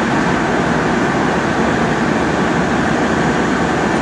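Diesel train engine running steadily at the platform, a loud, even noise with no distinct tones or knocks.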